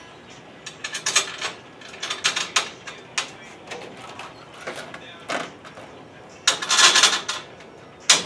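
Small steel hardware (bolts, washers and nuts) clicking and clinking as it is handled in a parts tray and fitted through the truck bed's wood, in irregular sharp clicks. About six and a half seconds in comes a longer rattling clatter.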